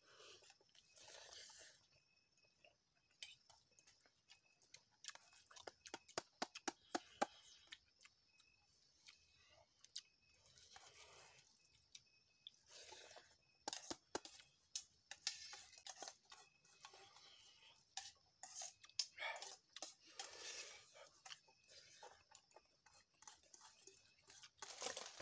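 Faint sounds of eating rice by hand from a steel tiffin box: soft chewing, with many small clicks and scrapes of fingers against the metal box.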